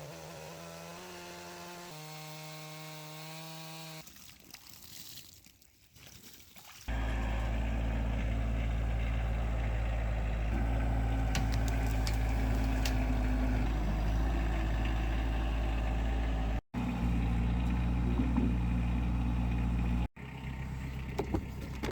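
Stihl chainsaw in an Alaskan chainsaw mill, running steadily at a high, even pitch while ripping an oak log. It cuts off abruptly twice. Before it come a few seconds of stepped musical tones and a quieter stretch.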